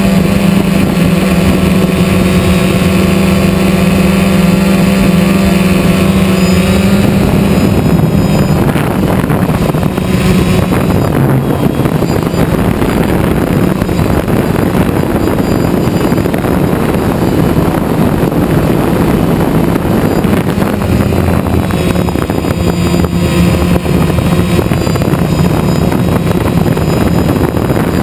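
Quadcopter's electric motors and propellers buzzing right by the onboard camera: a steady hum for the first several seconds, then rougher and noisier with wind over the microphone as the drone manoeuvres, the steady hum coming back near the end.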